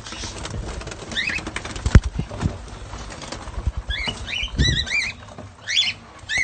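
Small caged parrots chirping in short calls that rise and fall in pitch, in a few clusters, over scattered knocks and flutters of birds moving about the cage; one sharp knock about two seconds in is the loudest sound.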